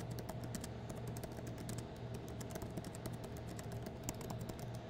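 Typing on a computer keyboard: a quick, steady run of keystroke clicks as a sentence is typed out.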